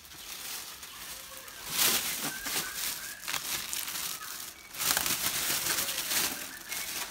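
Thin plastic carrier bag rustling and crinkling as chunks of jackfruit are put into it, in two bouts, about two seconds in and about five seconds in.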